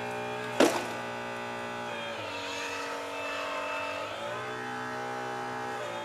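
Hydraulic RC Liebherr 944 model excavator running: a steady pitched drone that drops and rises in steps as the boom and bucket are worked. A single sharp knock comes about half a second in.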